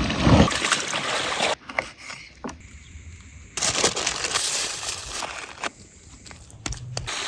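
A quick run of hands-on cooking sounds: a handheld butane torch hissing as it singes a raw chicken, then parchment paper crinkling as it is folded around the chicken about three and a half seconds in, then wet clay squelching as it is kneaded by hand near the end.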